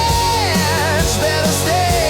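Rock music: a band with a steady drum beat under a lead melody line that bends down in pitch and wavers with vibrato.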